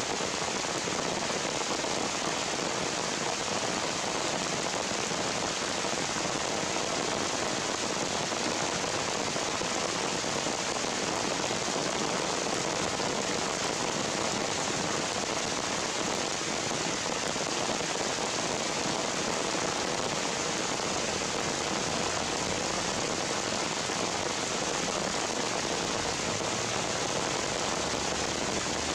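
Steady, even hiss of rain falling on leaves and forest undergrowth.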